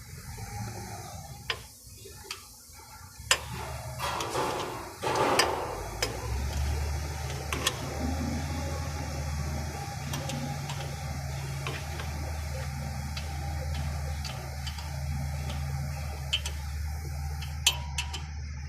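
Euro 4 engine running at a steady idle, fitted with a new injector and now running smoothly. There is a brief surge about four to five seconds in, and scattered light clicks over the idle.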